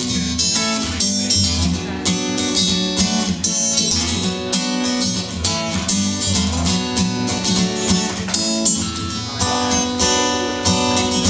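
Acoustic guitar strummed in a steady rhythm, chords repeating: the instrumental intro of a song before the vocals come in.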